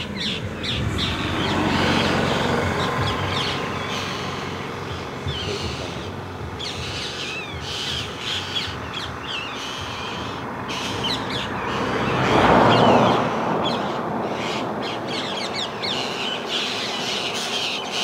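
Parrots squawking over and over in short, harsh, sliding calls, raising alarm at a snake in the tree near their young. Under the calls is a steady rushing background that swells louder about twelve seconds in.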